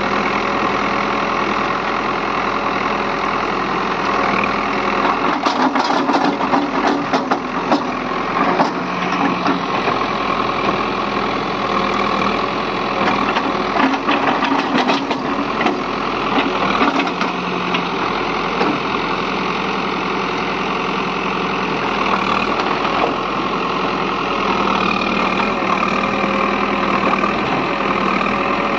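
Caterpillar 424B2 backhoe loader's diesel engine running steadily, pitching up under load as the backhoe arm digs. Bursts of crackling and snapping come about six to nine seconds in and again around twelve to seventeen seconds, as the bucket breaks through brush and branches.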